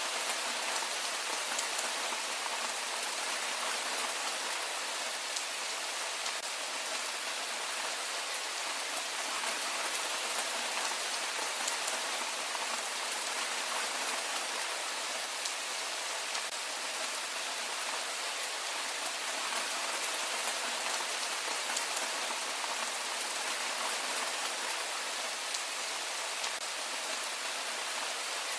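Heavy rain falling steadily, an even hiss of many drops with faint individual drop ticks scattered through it.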